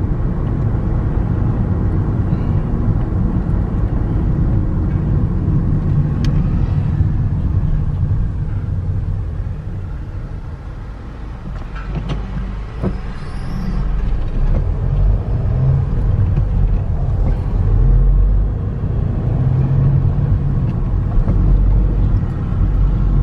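Car driving on a city road, heard from inside the cabin: a steady low rumble of engine and tyre noise. It eases off somewhat about halfway through, then builds again.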